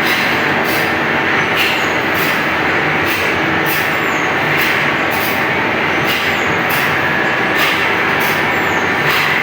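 Band saw blade sharpening machine grinding the teeth: steady grinding noise with a regular stroke about once a second as the wheel works tooth after tooth.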